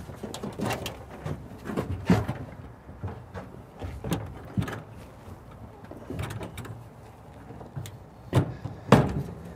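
Knocks, clunks and scraping of a metal diamond-plate truck toolbox being lifted and set down onto the pickup's bed rails, with the loudest knocks near the end.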